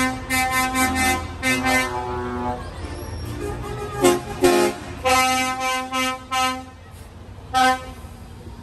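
Lorry air horns blown in a run of short toots, a quick string of them at first, then more after a brief pause and a single blast near the end, over the low rumble of the passing trucks' engines.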